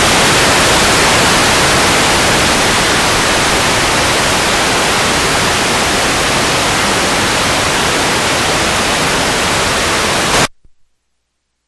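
Loud, steady static hiss of a snowy, blank video picture (TV snow) that stops abruptly about a second before the end.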